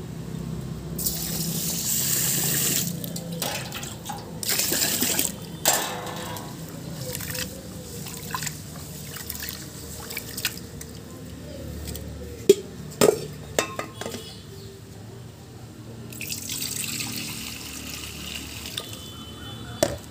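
Rice being washed by hand in an aluminium pot: water poured in and drained off in several gushes, with the rice and water sloshing as it is stirred. A few sharp knocks of the pot come about midway.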